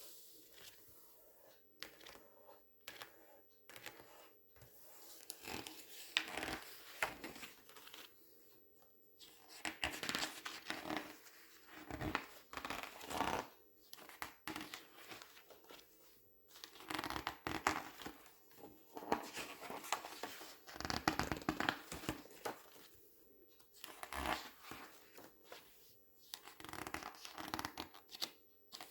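Glossy magazine pages being handled, turned and squeezed: crisp crinkling and rustling of paper that comes in clusters a few seconds long with short quieter pauses between.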